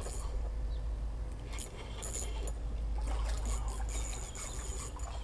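A spinning reel being cranked as a hooked black drum is brought up and splashes at the water's surface, with a steady low rumble underneath.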